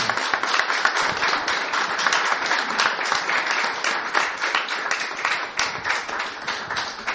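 Steady applause from many hands clapping.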